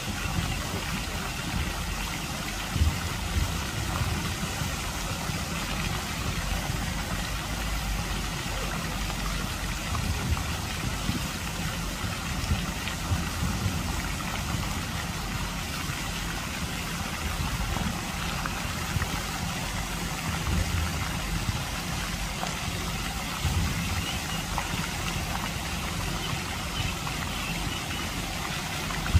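Fountain jets spraying and splashing into a lake, a steady rushing patter of falling water, with a low rumble underneath.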